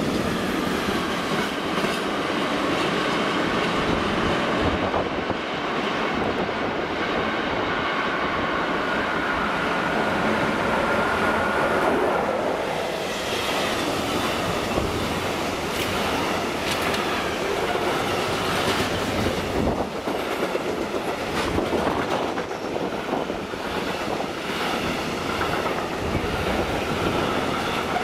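Freight train passing close by: tank wagons and then flat and covered wagons rolling past with a steady heavy rumble and clickety-clack of wheels over rail joints. A thin high whine runs through the first half, and the joint clicks come thicker in the second half.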